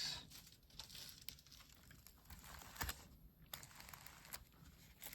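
Faint rustling and crinkling of firecracker brick packaging being handled, with scattered small clicks and one sharper click a little under three seconds in.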